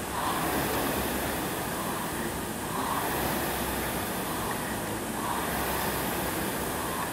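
Air rowing machine's fan flywheel whooshing under hard rowing, surging with each stroke about every two and a half seconds.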